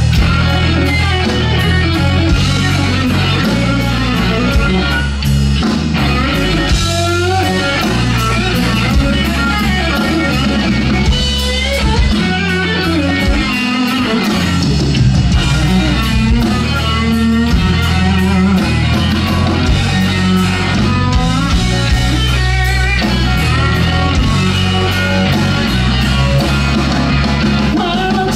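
Live blues-rock band playing: an electric guitar lead with many bent notes over bass guitar and drum kit, with no singing.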